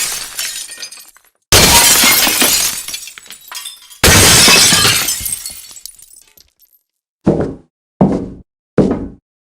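Glass smashing: two loud crashes that start suddenly, about a second and a half and four seconds in, each fading out over a second or two. Near the end come four short, sharp hits a little under a second apart.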